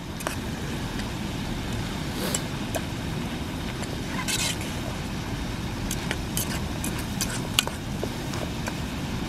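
Fork stirring beans and mushrooms in a metal camping pan, clinking and scraping against the pan several times, with a longer scrape about four seconds in. A steady low rumble underlies it.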